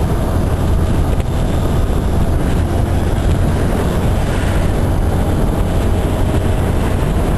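Motor scooter riding along at speed: a steady low rumble of engine and road noise under wind rushing over the microphone.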